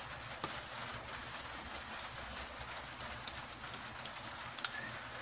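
Scattered light clicks and taps of a spoon and bowl being handled as sugar is added to a crushed aloe vera mixture, with a sharper click near the end, over a steady low hiss.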